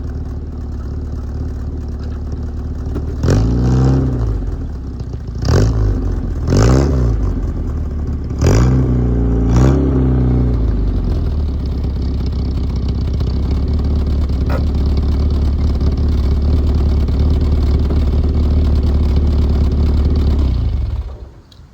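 1965 Volvo PV544 Sport's B20 four-cylinder engine running through an exhaust with one of its two mufflers deleted. It is revved about five times in quick blips between about 3 and 10 seconds in, then runs steadily until the sound stops near the end.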